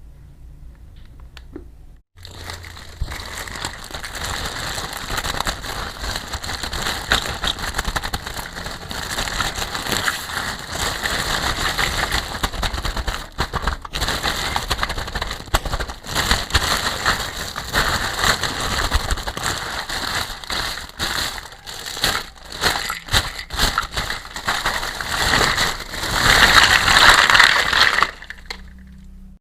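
Plastic packaging being crinkled and crushed by hand, a dense run of crackles that starts suddenly about two seconds in, gets loudest near the end and then stops suddenly.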